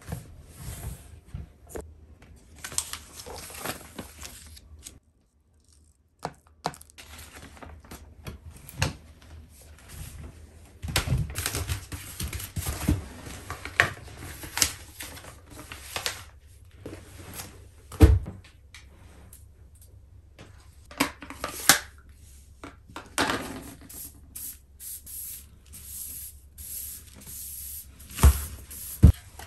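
Close-up cleaning sounds on a hard entryway floor: irregular rubbing and scraping with many small clicks and a few sharp knocks, and near the end a small hand broom brushing loose dirt across the floor toward a dustpan.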